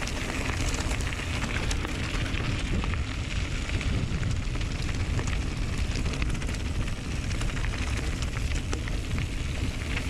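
Mountain bike riding downhill: wind buffeting the action camera's microphone as a steady low rumble, with tyres crackling over a rough stony trail and many small clicks and rattles from the bike.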